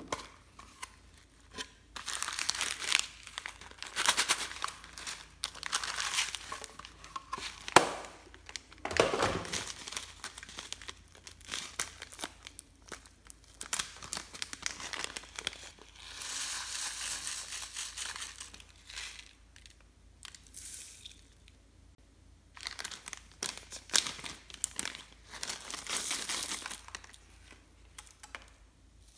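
Slime being worked by hand, with crackling, crinkling sounds that come in bursts of one to a few seconds with short pauses, and one sharp click about eight seconds in.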